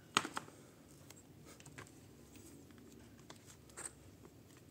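Handling noise from an LED bulb being worked on by hand: a few small clicks and taps of its plastic and metal parts, two close together at the start, a couple more about a second and a half in, and one near the end, over faint room hiss.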